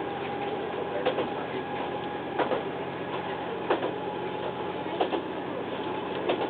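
Diesel railcar running at speed, heard from inside: a steady engine drone with the wheels clacking over rail joints about every 1.3 seconds.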